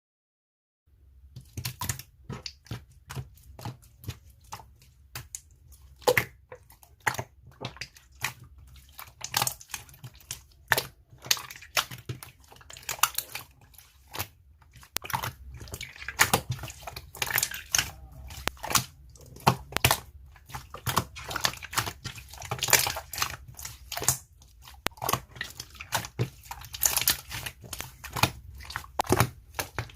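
Slime being squished, pressed and stretched by hand, with many quick irregular clicks and pops as trapped air bubbles burst. It starts about a second in.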